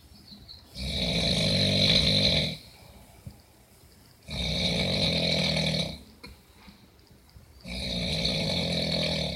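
Loud snoring: three long, rasping snores, each lasting about a second and a half to two seconds, coming roughly every three and a half seconds with quiet breaths between.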